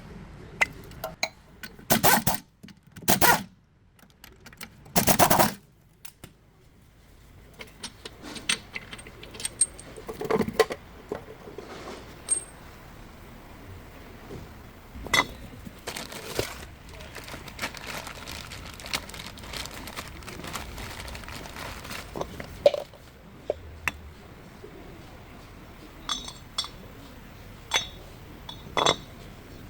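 Metal tools and parts clinking and knocking during wheel-hub work, with three louder clanks in the first few seconds and lighter clicks after.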